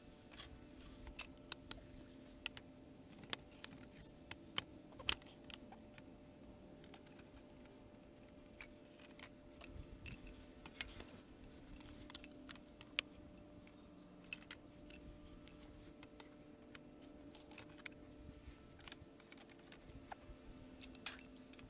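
Scattered light clicks and taps of plastic stacking stakes and composite boards being handled, over a faint steady hum.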